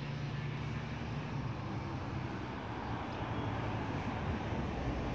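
A steady engine-like rumble with a broad hiss over it, swelling slightly toward the end.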